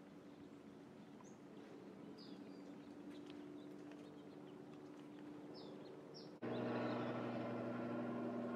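Outdoor ambience: birds chirping faintly and sparsely over a low steady hum. About six and a half seconds in, a sudden cut brings in a louder steady mechanical hum.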